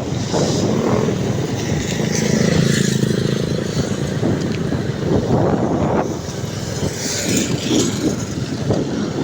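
Vehicle engine and road noise while driving up a steep, winding mountain road, a steady low rumble with an engine hum that swells a couple of seconds in.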